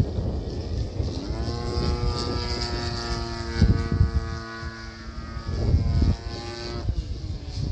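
Flex Innovations Mamba 70 radio-controlled plane flying overhead, its motor and propeller making a steady whine. The pitch rises about a second in and drops near the end. Wind gusts rumble on the microphone twice.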